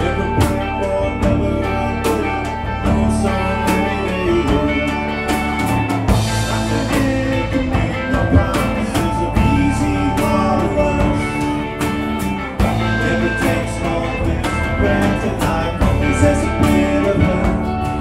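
A live alt-country rock band playing: strummed acoustic guitar, electric guitars, bass guitar and a drum kit keeping a steady beat.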